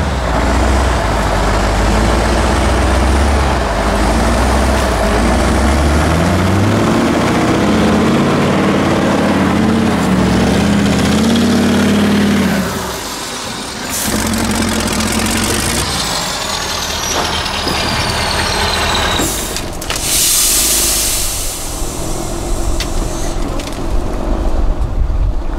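Mercedes-Benz 8x8 trial truck's diesel engine revving hard under load, its pitch climbing for several seconds, then cutting back about halfway through. After that a high whistle falls in pitch and a loud hiss of air follows, like air brakes releasing, before the engine picks up again near the end.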